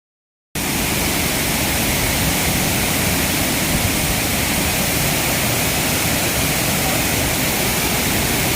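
Steady rush of a waterfall, an even hiss of falling water with no breaks. It starts after a half-second gap of silence at the very start.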